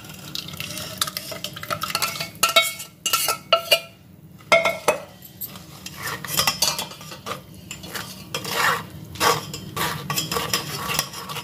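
A steel spoon scraping and clinking against a stainless-steel mesh strainer and bowl as thick mashed bael pulp is pressed through the mesh. The scrapes and taps come irregularly, loudest a few seconds in.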